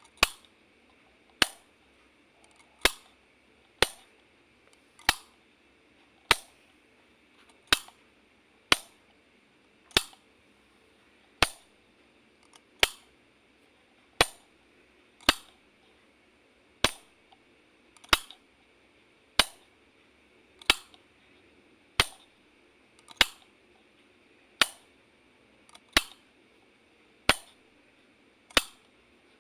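Light switch flicked over and over, a single sharp click about every 1.3 seconds.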